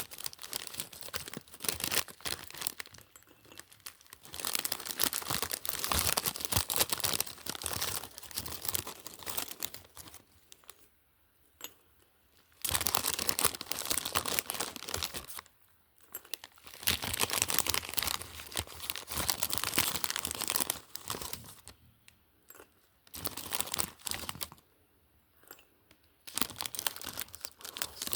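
Packaging being opened by hand, crinkling and tearing in long stretches broken by short pauses.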